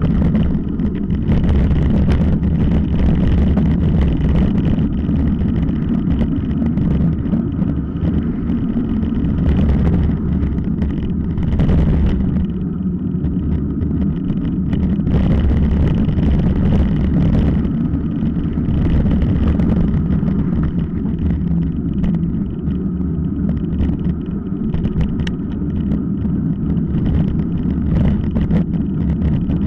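Continuous low rumble of wind on the microphone and tyres running over a dirt and gravel track from a camera mounted on a mountain bike, with frequent small rattles and knocks as the bike rides over stones.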